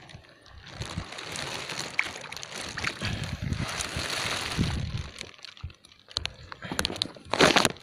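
Shallow seawater sloshing and splashing irregularly as a hand squeezes and moves a sea cucumber in it.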